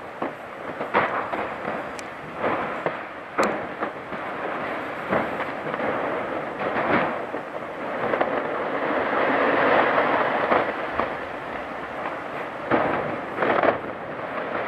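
Iceberg ice cracking: sharp snaps and pops every second or two over a steady rushing hiss that swells in the middle.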